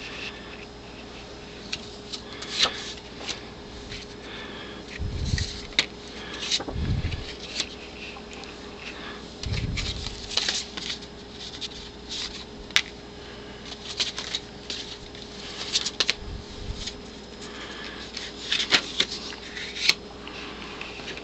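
Old paper postcards being handled and shuffled: intermittent rustles, flicks and taps, with a few low thumps.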